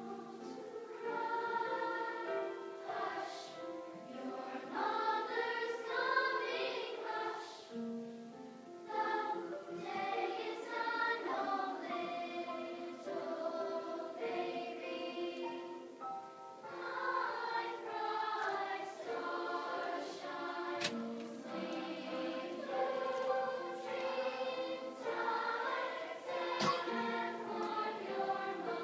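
A large children's choir singing together in phrases, with many voices blending.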